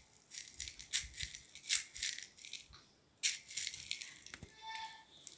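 Tiny sugar-pearl cookie decorations rattling inside a small jar as it is handled, in irregular short bursts.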